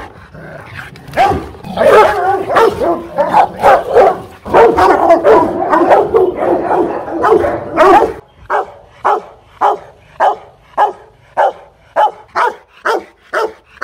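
Rottweilers barking: for the first eight seconds a rapid, almost unbroken string of barks, then about eight seconds in it changes to steady single barks at about two a second.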